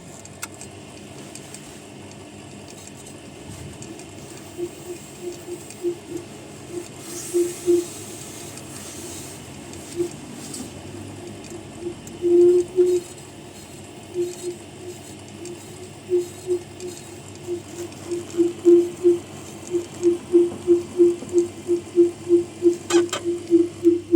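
Tormek sharpening machine running with a low motor hum and a repeated creak. The creak is irregular at first and becomes steady and rhythmic, about two to three creaks a second, in the second half. The creak is a common problem on a Tormek that gets heavy use.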